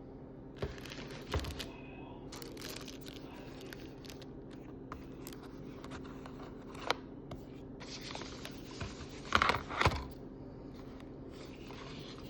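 Tablet packaging being handled: scraping, crinkling and tearing with scattered sharp clicks, and a louder burst of handling about three quarters of the way through, over a steady low hum.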